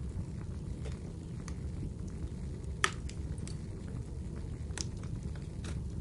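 Wood fire crackling in a fireplace: a steady low rumble of burning with scattered sharp pops, about seven in all, the loudest about three seconds in.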